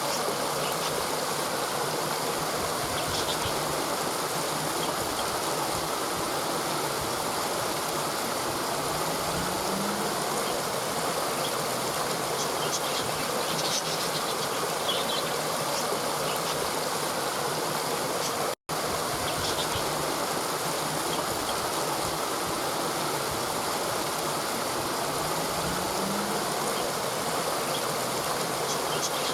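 Waterfall rushing steadily, an even dense splash of water. It cuts out for an instant about two-thirds of the way through.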